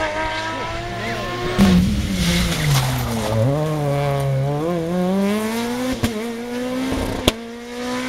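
Peugeot 208 rally car's engine braking hard into a corner, the revs dropping steeply, then accelerating out with the revs climbing steadily. Two sharp cracks come late on.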